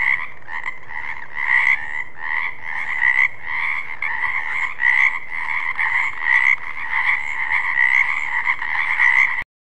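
Frogs croaking in a chorus: a dense, continuous run of rapid repeated calls, which cuts off suddenly near the end.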